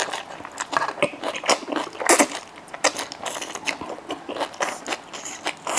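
Close-miked chewing of a mouthful of crown daisy greens and rice in spicy malatang: wet, sticky clicks and squelches, about three a second.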